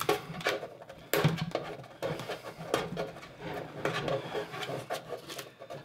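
Heavy-duty packing tape being peeled off foam packing: a run of irregular crackles and tearing rustles.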